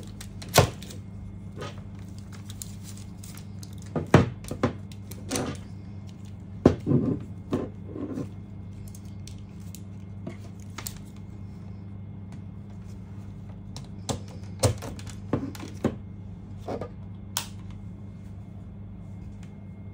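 Steady low hum with scattered light clicks and knocks, in small clusters.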